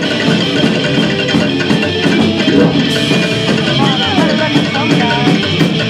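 A live punk-rockabilly (psychobilly) band plays an instrumental passage: electric guitar over driving drums, loud and dense.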